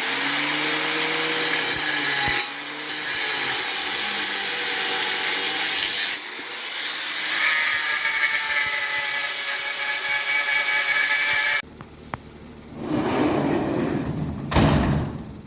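A power tool running on metal: a loud, hissing, high-pitched grind that dips briefly twice and stops about twelve seconds in, followed by a shorter burst of noise near the end.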